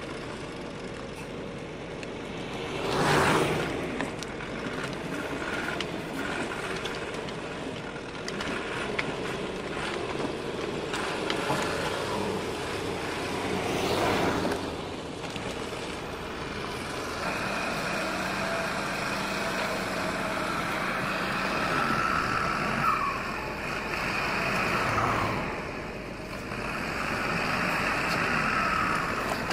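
Road traffic: cars pass close by twice, about three seconds in and again near the middle, over a steady engine running throughout.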